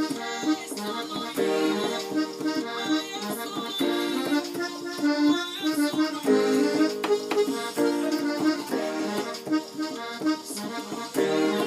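Electronic keyboard on an accordion voice playing a Ghanaian gospel groove: held chords that shift every second or two, with a repeating bouncing figure over them.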